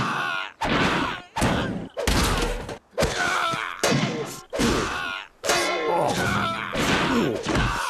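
A run of about eight short bursts, roughly one a second, each a thud with a pained voice groaning or crying out.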